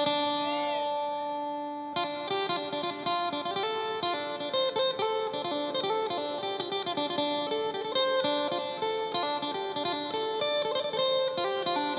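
Isan phin (plucked lute) playing a melody against a steady drone. Held notes bend up and down in the first two seconds, then quick, busy plucked notes follow.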